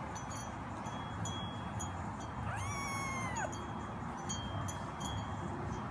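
A black-and-white kitten being hand-fed gives one high meow about halfway through, about a second long, rising at the start and falling away at the end.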